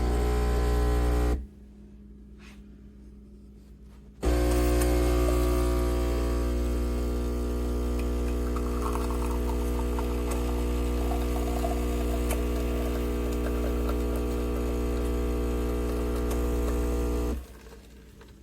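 Espresso machine pump buzzing steadily: a short run of about a second and a half, then, after a pause of about three seconds, a long run of some thirteen seconds that cuts off suddenly near the end.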